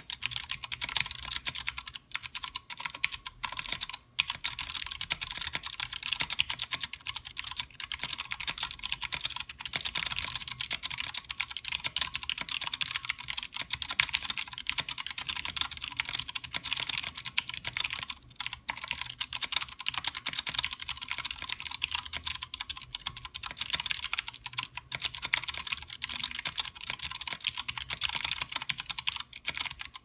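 Fast, continuous typing on a Pok3r 60% mechanical keyboard with Cherry MX Clear tactile switches, GMK keycaps, a steel plate and an acrylic case: a dense stream of keystroke clacks with a few brief gaps.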